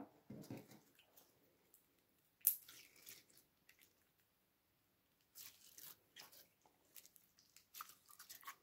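Green glitter slime squeezed and stretched by hand: faint, scattered squishing sounds, the loudest about two and a half seconds in.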